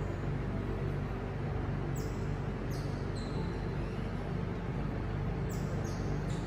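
Steady low mechanical hum that does not change, with a few brief, faint high chirps sweeping downward.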